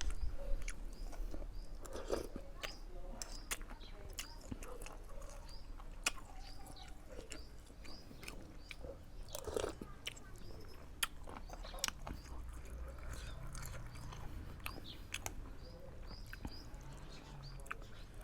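A person chewing and eating, with many small, quick mouth clicks and crunches.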